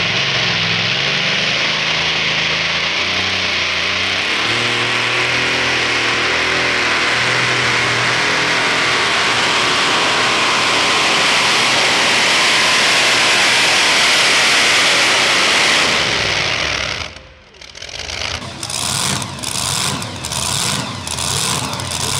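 Super modified two-wheel-drive pulling truck's engine running hard at full throttle through a pull, a loud steady sound with the engine pitch shifting. It cuts off suddenly about seventeen seconds in, and a rhythmic beat of music follows.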